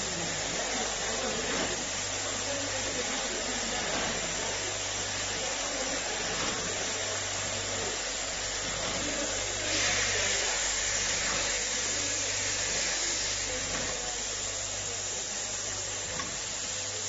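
Rotary turntable filling and capping machine running: a steady hiss over a low hum, with the hiss growing louder for about three seconds midway.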